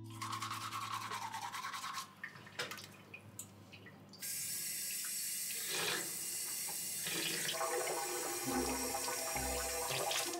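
Water running from a tap into a sink. It comes on about four seconds in and runs steadily.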